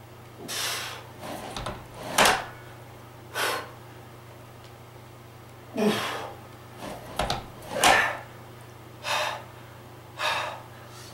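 A man breathing hard while straining through push-ups: about eight loud, hissy exhalations and gasps, one every second or so, some with a strained grunt.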